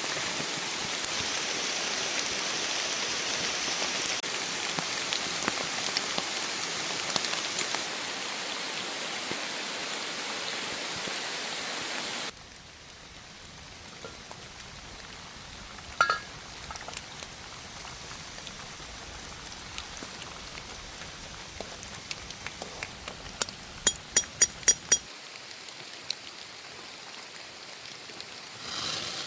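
Steady rain falling, loud for about the first twelve seconds, then cutting suddenly to quieter rain. Near the end, a quick run of about seven sharp, ringing clicks.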